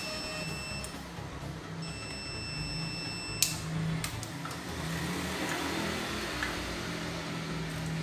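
Digital multimeter's continuity beeper giving a steady high beep while the probes are held across the thermostat's terminals, signalling a closed circuit between them. The beep stops just under a second in, sounds again for about a second and a half, and cuts off with a sharp click.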